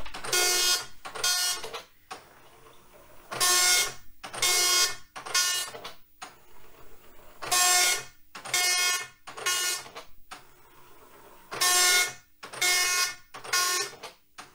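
Commodore MPS 803 dot-matrix printer printing a graphic: the print head buzzes in half-second passes, three in quick succession and then a pause of about two seconds, the pattern repeating about every four seconds.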